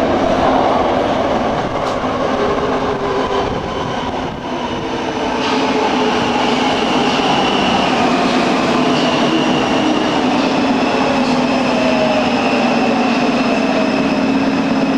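Warsaw Metro train running at the platform: the rumble of the cars with whining tones that fall in pitch over the first few seconds, then a steady high whine from about five seconds in and a low hum rising slowly near the end.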